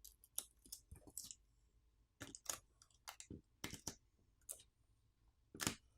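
Faint, irregular light clicks and ticks of small tools and parts being handled on a smartphone's frame during disassembly, the loudest click near the end.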